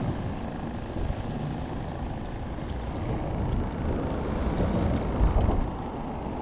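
Wind buffeting the microphone, a steady low rumble with a few faint clicks in the second half.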